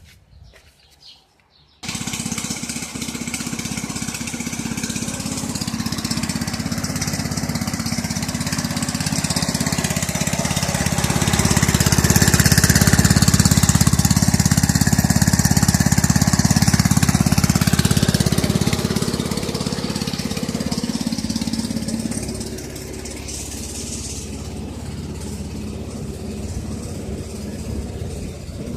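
Small gasoline engine driving a homemade concrete mixer's hydraulic motor, coming in suddenly about two seconds in and running steadily. It runs louder from about eleven to eighteen seconds in, then settles lower for the rest.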